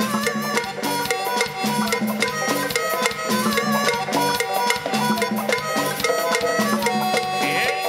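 Punta rock band playing: a fast, steady drum and percussion beat under sustained melodic instrument lines.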